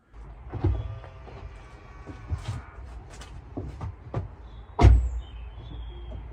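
Several clicks and knocks over a low steady rumble, with one loud thump about five seconds in.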